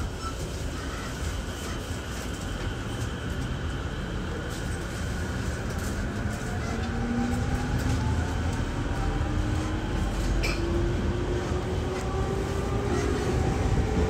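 Running noise inside a JR Musashino Line electric commuter train pulling away: a low rumble of wheels and running gear, with the traction motors' whine rising steadily in pitch from about halfway through as the train accelerates.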